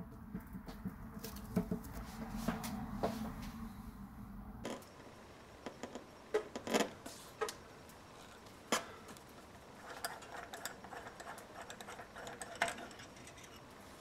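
Light clicks and clinks of a tyre-plug kit's probe tool being handled and unscrewed from the nozzle left in the tyre tread, with faint rubbing near the end. For the first few seconds a low hum runs under a few clicks.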